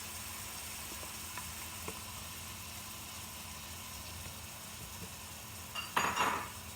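Chopped onions and peppers sizzling steadily in hot oil in a pan, with a short, louder burst of noise near the end.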